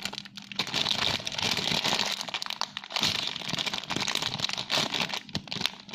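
Rainbow unicorn squishy toy squeezed and handled close to the microphone, giving a dense crinkling and rustling with short pauses in between.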